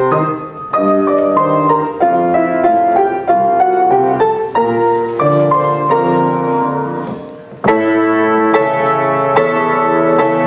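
Solo piano playing classical-style music in a steady run of struck notes and chords. A louder passage cuts in abruptly about eight seconds in.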